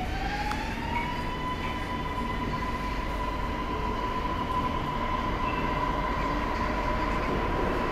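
MRT Blue Line metro train heard from inside the car. The motor whine rises in pitch as the train picks up speed, levels off about a second in and holds a steady tone over the running rumble of the train.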